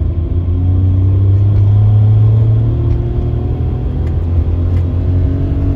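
Car driving, heard from inside the cabin: a loud, steady low road-and-engine rumble, with an engine note that climbs slowly as the car gathers speed.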